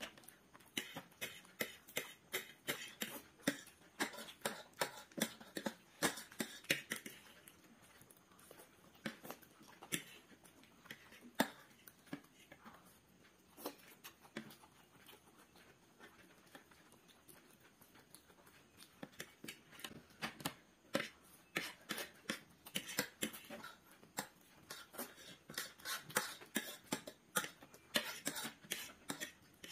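Eating sounds: metal forks clicking and scraping against ceramic plates, with the mouth sounds of chewing noodles, a close run of many sharp clicks that thins out in the middle and grows busy again near the end.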